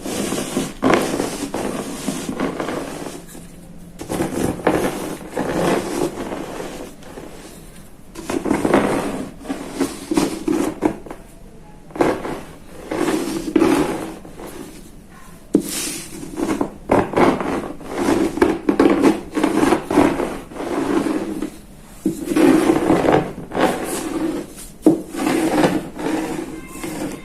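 Gym chalk blocks crunching and crumbling under a wooden rolling pin, in repeated bouts of crackling and grinding a second or two long with short pauses between.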